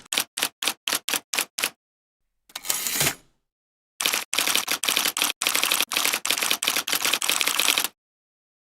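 Typewriter keys clacking at a steady pace of about four or five strikes a second, then a short rasping slide, then a fast run of keystrokes that stops sharply near the end.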